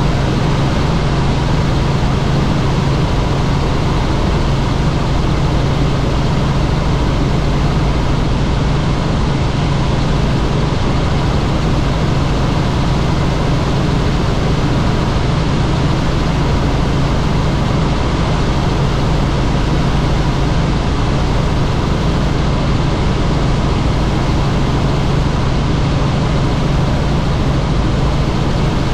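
Helicopter in flight, its engine and rotor noise steady: a strong low hum under a broad rushing hiss.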